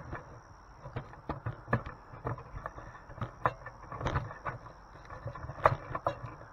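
Camera being handled and set in place: irregular clicks, knocks and scrapes close to the microphone, uneven in loudness, the sharpest knocks about four and five and a half seconds in.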